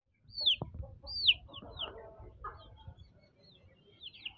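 Young chickens peeping: a run of short, high calls that slide downward, several a second, with fainter low sounds beneath.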